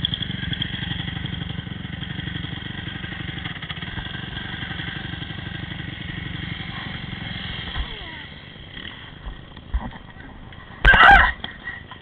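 Dirt bike engine running with a fast, even throb that fades after about eight seconds. A few knocks follow, then a loud, brief clatter about eleven seconds in.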